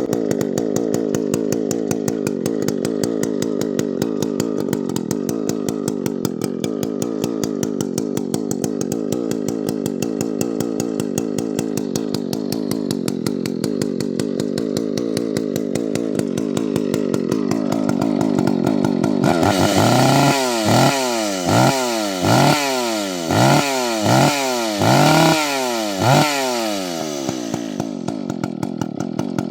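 Husqvarna 2100 CD chainsaw's 99 cc two-stroke engine, freshly rebuilt, idling steadily. From about two-thirds of the way in it is revved in about seven quick throttle blips, each rising and falling in pitch, then drops back to idle near the end.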